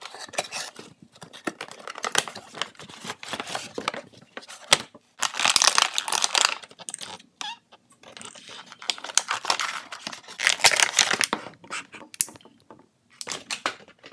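Toy packaging being opened: a cardboard box and a clear plastic blister tray crinkling, rustling and tearing, with small clicks and taps. The handling comes in bursts, loudest about five seconds and ten seconds in.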